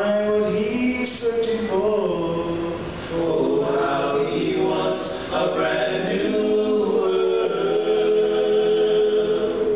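Male vocal group singing in harmony, several voices holding long chords together and moving between them.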